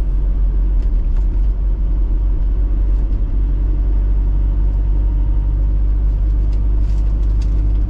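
Troller 4x4 driving along a road: steady engine and road rumble, strongest in the low bass, with no change in pace.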